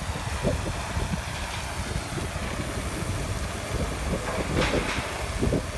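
Low rumble of a Komatsu hydraulic excavator's diesel engine running at the demolition debris pile, mixed with wind buffeting the microphone.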